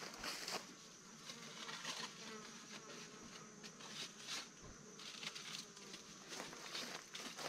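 Faint insect buzzing, with scattered soft clicks and rustles throughout.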